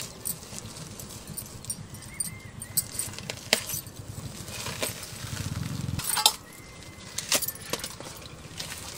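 Glass bangles clinking on a wrist in sharp, irregular clicks as hands tear and squeeze the fibrous pulp of ripe toddy palm fruit. A low rumble swells briefly about five seconds in.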